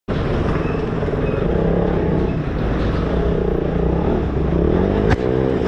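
Motorcycle engine running while riding, its pitch rising and falling with the throttle under a steady rushing noise. About five seconds in there is a sharp click, and the engine note falls.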